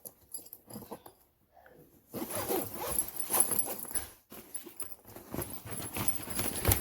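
Zipper on a backpack's front pocket being pulled open, a rasping run of zipper teeth starting about two seconds in and running on in two stretches, with fabric handling alongside.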